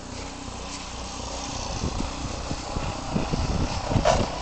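Gasoline snowblower engine running steadily while clearing a driveway, growing louder toward the end.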